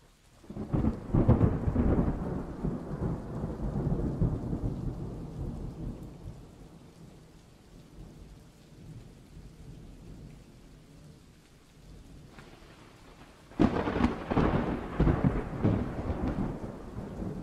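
Thunderstorm sound effect: a roll of thunder begins about a second in and fades over several seconds, rain hisses steadily, and a second sudden thunderclap rumbles near the end.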